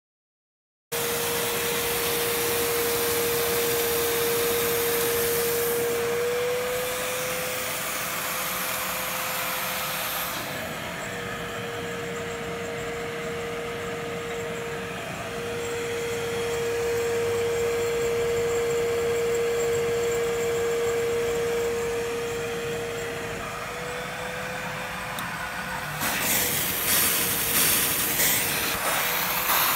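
Steam-vacuum cleaner running, its vacuum motor giving a steady whine that shifts slightly in pitch a few times. About 26 seconds in, a louder fluttering hiss of steam from the extraction nozzle joins it.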